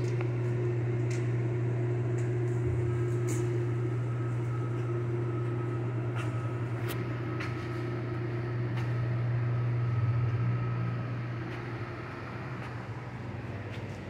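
A machine running with a steady low hum, with scattered light clicks and knocks over it; the hum eases off a little near the end.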